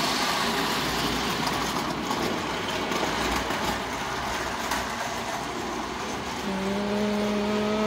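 O-scale tin toy train running on the layout track, a steady running rattle and rumble. Near the end a steady, even tone sounds for about a second and a half.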